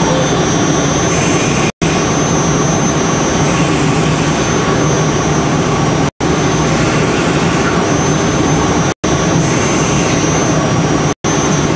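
Intorex CNC wood lathe running, its high-speed router spindle machining a wooden blank: a loud, steady machine noise with a thin high whine on top. The sound cuts out for an instant four times.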